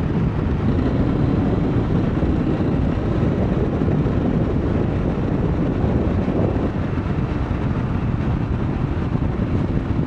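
Motorcycle engine running at steady cruising speed, heard with wind and road noise on a helmet microphone while riding.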